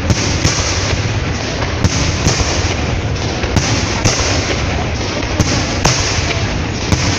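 Fireworks display: aerial shells bursting in sharp bangs about once or twice a second, over a continuous dense noise of crackling and rumble.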